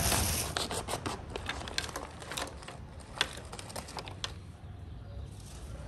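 Mussel and clam shells clicking and clacking against each other and on a wooden board as they are laid out by hand, with some plastic bag rustling. The clicks come irregularly, a few to several a second.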